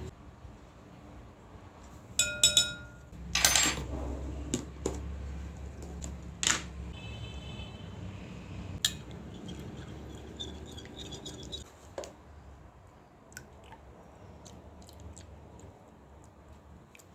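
Kitchen dishes and utensils clinking and knocking during food preparation. There are a few ringing clinks about two seconds in, a louder knock just after, a softer ringing clink around seven seconds, and lighter taps between.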